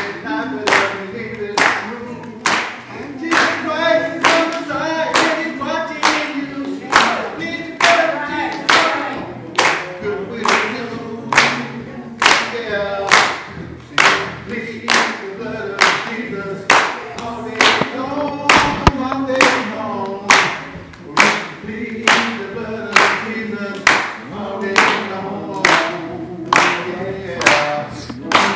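A group of voices singing a song together, with steady hand clapping in time, about three claps every two seconds.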